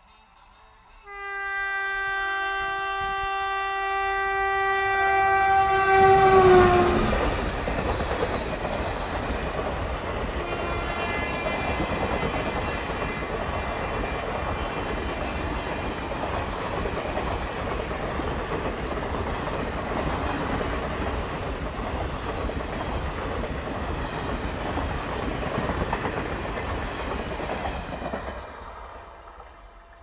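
WAP-4 electric locomotive sounding one long horn blast of about five seconds, its pitch dropping as the locomotive passes at speed. The superfast express's coaches then run past for about twenty seconds, a steady loud rush of wheels on rail, fading away near the end.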